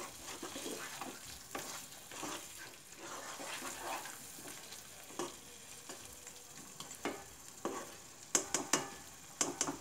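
Spatula stirring and scraping fried baby potatoes through a thick masala in a nonstick kadhai, over a faint sizzle. Near the end come a quick run of sharp taps of the spatula against the pan.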